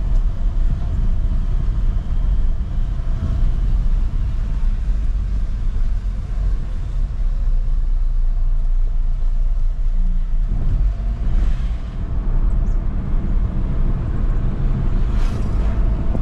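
Jeep Renegade diesel SUV on the move, heard from inside the cabin: a steady low rumble of engine and road noise, with two brief swells of hiss about eleven and fifteen seconds in.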